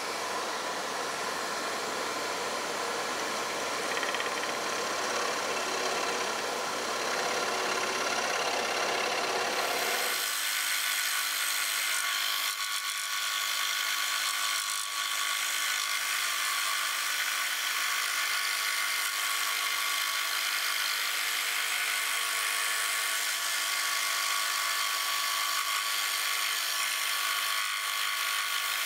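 Axminster Workshop AW405FS scroll saw running steadily, its reciprocating blade cutting a circle out of plywood. About ten seconds in the deeper part of the sound drops away, leaving a thinner buzz.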